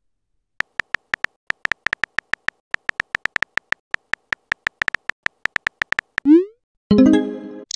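Rapid on-screen keyboard typing clicks, several a second, as a text message is typed. Near the end comes a quick rising swoop and then a short pitched chime as the message is sent into the chat.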